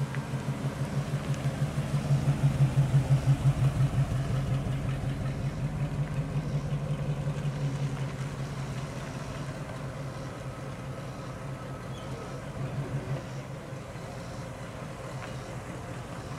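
Engine of a pre-war two-door sedan running at low speed with a steady pulse as the car drives slowly past and away. It is loudest about two to four seconds in, then fades as the car moves off.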